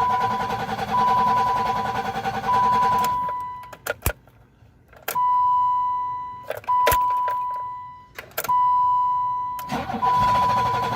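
Starter motor cranking the 1986 BMW 325's 2.7-litre straight six in repeated bursts of a few seconds, each with a steady high whine, broken by short stops and clicks. The engine does not catch, and the cranking is slowing as the battery runs down.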